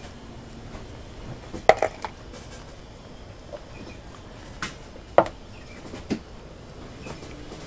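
A handful of sharp clicks and taps from small metal parts and tools being handled while snap rings and trunnions are fitted into rocker arms. The loudest is about five seconds in.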